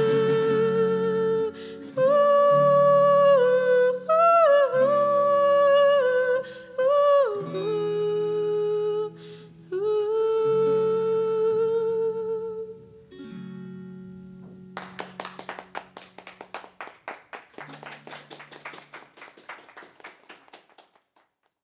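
A woman sings long held notes over an acoustic guitar as the song closes. The voice stops a little over halfway through, the guitar's last notes ring out, and a quick, uneven run of sharp taps fades away to nothing near the end.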